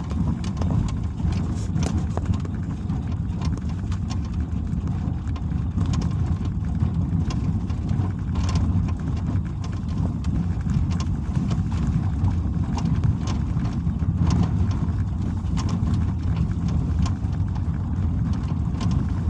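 Suzuki SX4 driving over small bumps, with a steady low road rumble and irregular sharp knocks from the front left. The knock is the hood rattling: its rubber bump stop by the left fender is set too low.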